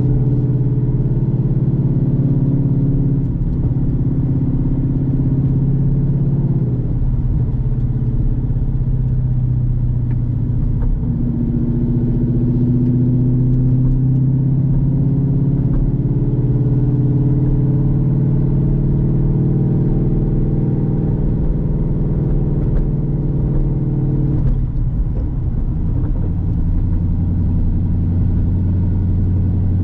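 Ford Boss 302 Mustang's 5.0-litre V8 heard through replacement side pipes while driving: a steady, deep exhaust drone whose pitch drops and rises a few times as the throttle and gears change.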